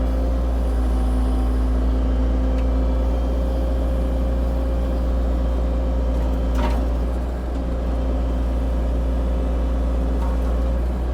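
CAT 304 E2 mini excavator's diesel engine running steadily under work, with one brief sharp sound about two-thirds of the way through.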